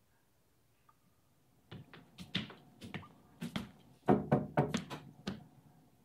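A run of irregular knocks and thumps, beginning after a near-silent start and loudest about four seconds in.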